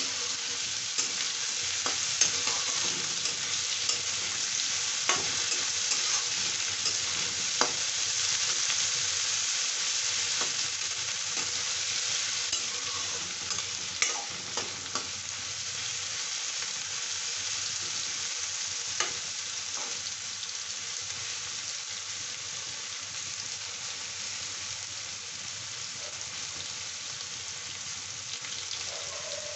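Diced vegetables sizzling in oil in a kadai, stirred with a metal spatula that scrapes and clinks against the pan now and then. The sizzle eases a little in the second half, and the clinks come mostly in the first two-thirds.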